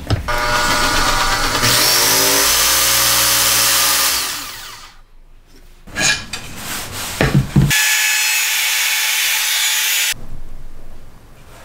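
Bosch PST1000PEL jigsaw cutting a wooden board: the motor speeds up over the first two seconds, runs steadily, and winds down about four to five seconds in. A few sharp knocks of wood pieces being fitted together follow, then a steady hiss for about two seconds near the end.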